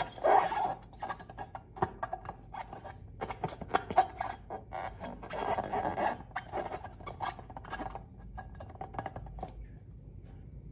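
Hands working sticky slime: irregular wet clicks, crackles and squelches, which thin out near the end.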